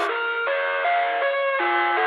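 Background music: the instrumental opening of a song, a melody of short steady notes that change every quarter to half second, with a thin sound and no low end.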